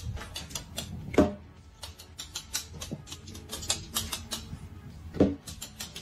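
Rapid, irregular light clicking and tapping as a small pet paws at hair ties on a bedspread, with two louder thuds about a second in and about five seconds in.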